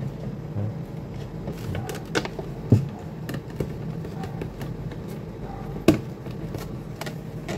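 Plastic clicks and knocks as the plastic housing of an air-conditioner condensate pump is handled and its halves pressed together, with two sharper knocks, one near three seconds in and one about six seconds in, over a steady low hum.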